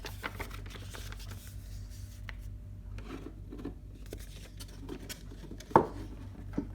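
Packaging and contents being handled: soft rustling and light clicks, with one sharp knock near the end.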